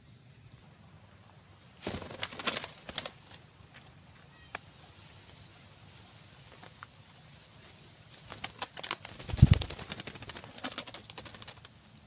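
Green parakeet wings flapping in two flurries, about two seconds in and again from about eight seconds, the second with a single dull thump as a bird lands on the tree.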